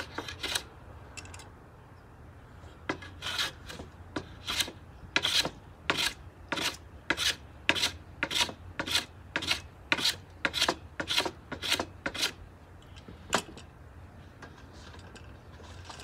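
A small hand plane shaving along the edge of a wooden board in quick repeated strokes, about two a second. The strokes start a few seconds in, stop a little past the middle, and one last stroke follows about a second later.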